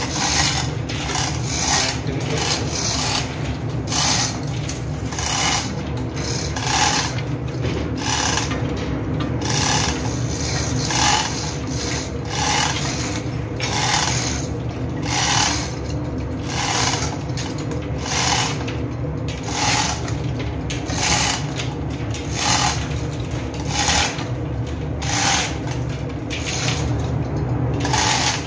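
Manual chain hoist being worked in a steady rhythm, a rasping, ratcheting rattle of chain roughly every 0.7 seconds as the heavy intercooler block hangs from it, over the steady hum of running engine-room machinery.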